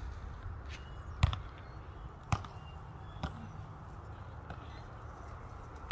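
A volleyball being struck by players' hands and forearms: three sharp smacks about a second apart, the first the loudest.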